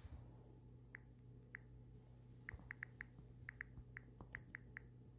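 Faint key-press clicks of a smartphone's on-screen keyboard as text is typed: about a dozen short high blips, irregular, some in quick runs, over a faint steady low hum.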